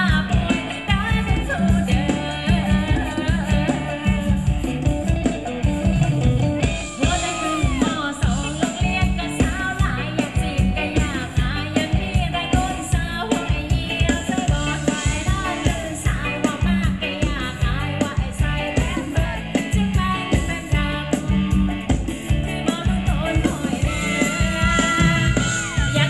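Live Thai ramwong band music: a singer over a steady, driving drum beat, loud and continuous.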